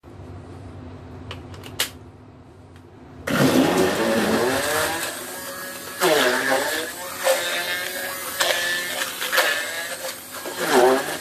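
Electric stick blender puréeing fried shallots and garlic in a tall beaker: after a couple of light clicks, the motor starts about three seconds in and runs loudly, its whine dipping in pitch a few times as the blades work through the food.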